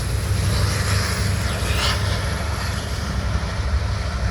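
BNSF freight train of empty coal hopper cars rolling past, giving a steady low rumble with the hiss and clatter of steel wheels on the rails.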